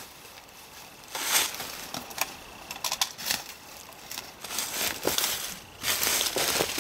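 Footsteps through dry fallen leaves and twigs, rustling and crackling in uneven bursts, with a few sharp snaps.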